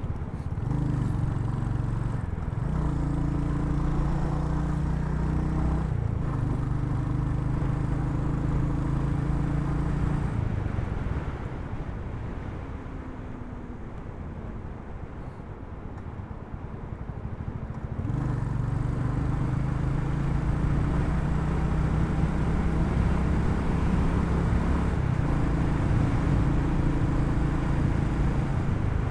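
Royal Enfield Hunter 350's single-cylinder engine running at a steady pace, mixed with road and wind noise on the moving bike. About ten seconds in the engine note drops away for several seconds, then comes back near the eighteen-second mark.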